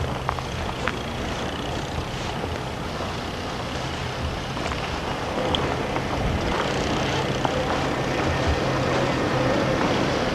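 A vehicle engine running steadily with a low hum, slowly getting a little louder.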